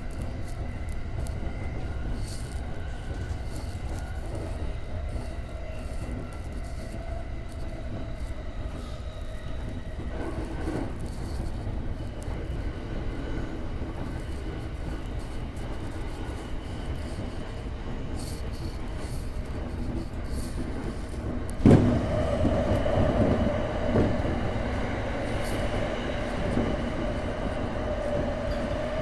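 Electric commuter train running along the track, heard from the front cab as a steady rumble of wheels on rails. About two-thirds of the way in there is a sudden thump as the train enters a tunnel, and the running noise is louder from then on.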